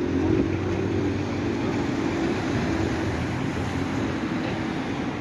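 A motor vehicle's engine running close by on a city street: a steady low engine hum over general traffic noise, easing slightly after about three seconds.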